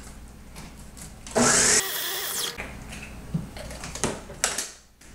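A countertop blending appliance's motor runs in one short, loud pulse about a second and a half in, whipping up the mashed black bean burger mixture, then winds down. A few knocks follow near the end.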